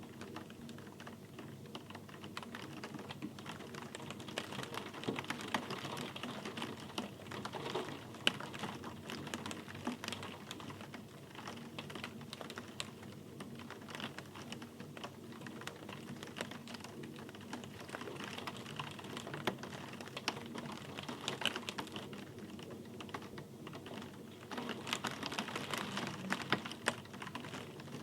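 Rain falling steadily, its drops striking a hard surface as a dense, irregular run of small ticks, like typing. The rain gets a little heavier near the end.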